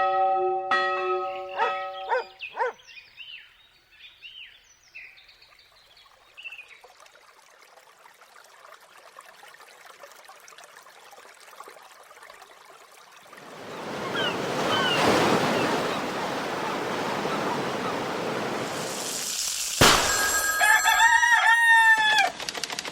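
A run of separate sound effects. Near the start come a few held tones, then short chirps that fade out. From about 13 seconds a broad rushing noise swells up, and near the end a rooster crows once, loud and clear.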